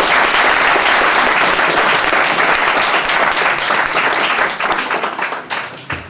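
Audience applauding: many hands clapping together in a dense patter that eases off near the end.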